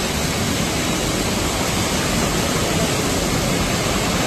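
Steady, loud machine noise of a running canning line, with the conveyor carrying cans along.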